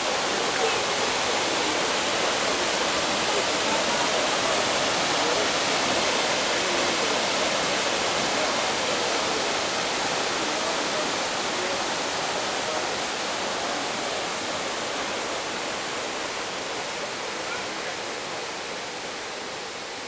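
Double Waterfall: a steady rush of water pouring down a wide stepped rock cascade. It fades gradually in the second half.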